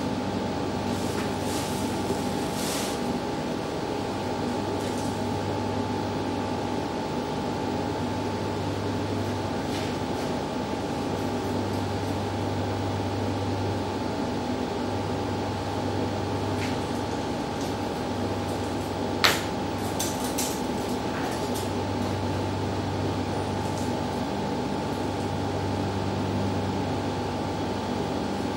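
Clicks and light clacks of a metal cap hoop being handled and clamped over a cap on a cap-hooping fixture, with one sharp snap about two-thirds through, over a steady machine hum.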